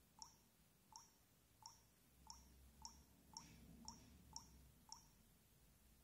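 Samsung GT-S5260 touchscreen dial pad sounding a short key-press beep for each digit as a code is entered: nine brief, slightly rising blips about half a second apart.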